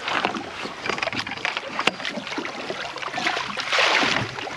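Water splashing as a walleye thrashes at the surface and is scooped into a landing net, the splashing loudest near the end.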